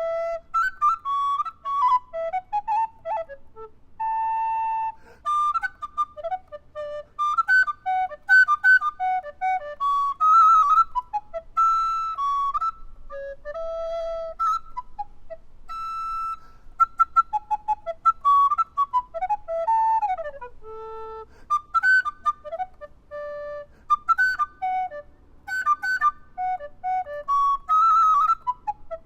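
Solo recorder playing a piece in imitation of nightingale song: quick runs of insistent repeated notes and trills, several sliding falls in pitch, and a few longer held notes.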